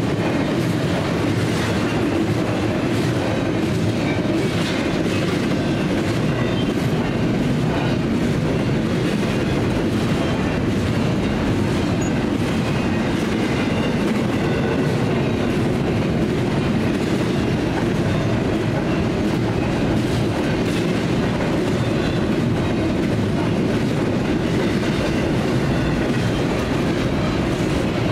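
Double-stack intermodal container train rolling steadily past: a continuous rumble of freight car wheels on the rails, with scattered clacks.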